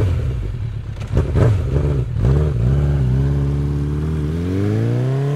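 Motorcycle engine revving in uneven blips, then holding steady before accelerating away with a smoothly rising pitch from about four seconds in.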